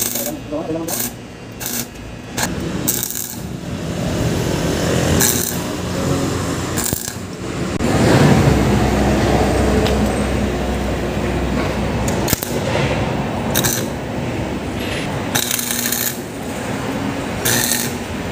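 Stick (arc) welding: the electrode's arc crackling and sizzling as it welds inside the bearing bore of a forklift caster-wheel leg, in runs broken by short pauses.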